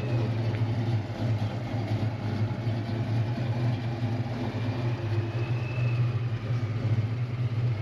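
Fox-body Mustang's 5.0 V8 idling steadily.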